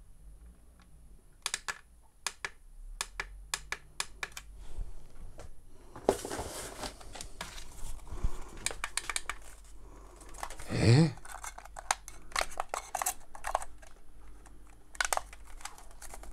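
Clicking of buttons and sticks on a plastic RC car remote control as it is pressed and handled, in scattered irregular clicks. A short louder sound swells and fades about eleven seconds in.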